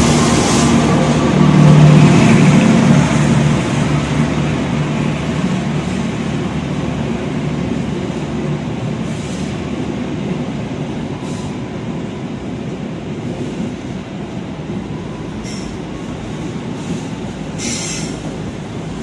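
A CC 206 diesel-electric locomotive passes close by, its engine drone loudest about two seconds in. It gives way to the steady rumble of passenger coaches rolling past, with a few short high-pitched sounds now and then.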